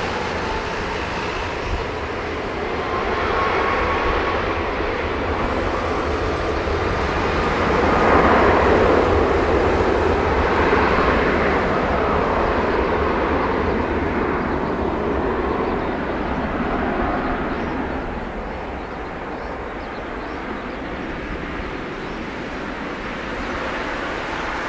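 Airbus A330-300's twin jet engines at takeoff thrust as the airliner rolls away down the runway: a jet roar with a thin whine that swells to its loudest about eight seconds in, then fades from about eighteen seconds on as the aircraft draws away.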